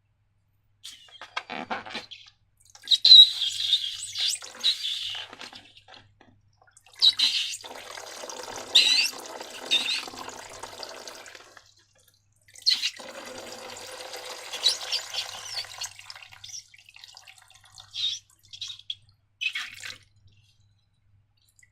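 Sticky slime squelching and squishing as it is worked, in several bursts of a few seconds each, with shorter, quieter squishes near the end.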